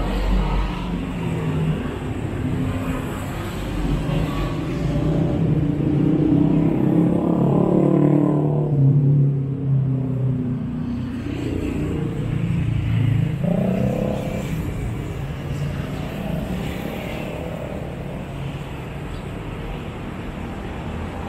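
Busy city road traffic passing close by: engines of cars, trucks and motorbikes running, with engine pitch rising as vehicles accelerate, loudest about eight seconds in and again around thirteen seconds in.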